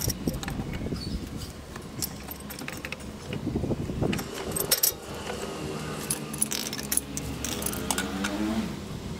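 Metal clinks and knocks of a steel pipe wrench and PVC pipe fittings being handled and set down on a tiled floor, scattered irregularly, with a low steady hum underneath.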